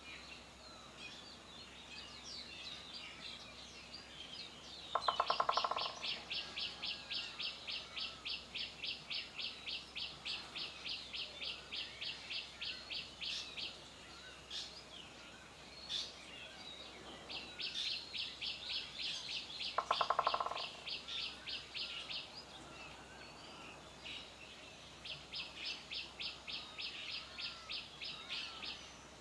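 A bird calling in three long runs of rapid high chirps, about five a second. The first two runs each open with a brief, louder, lower note.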